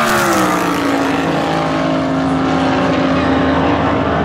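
Race car passing at speed: its engine note drops sharply in pitch as it goes by in the first second, then settles into a steady drone as it runs on down the track.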